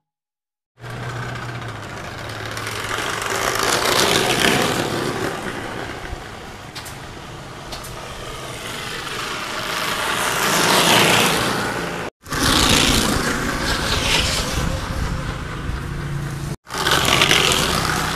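Bicycle fitted with a fake motorcycle muffler noisemaker, buzzing like a small motorbike as it rides past, swelling and fading with several pass-bys. The sound cuts out abruptly twice.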